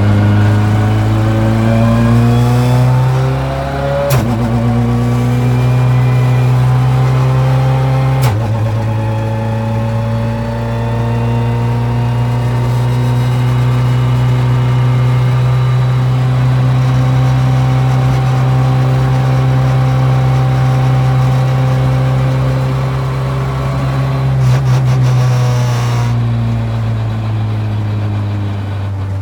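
Ford Fiesta WRC's turbocharged 1.6-litre four-cylinder engine heard from inside the cabin, pulling up through two gears with a sharp click at each shift, about four and eight seconds in. It then holds a steady cruising pitch, and near the end the pitch eases down with a few crackles as the car slows.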